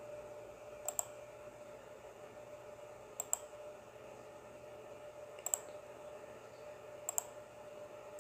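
Computer mouse button clicking, four sharp double ticks about two seconds apart, over a steady faint hum.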